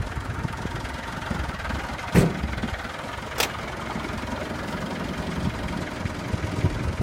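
A vehicle engine idling steadily, with two sharp knocks about two seconds in and a second later.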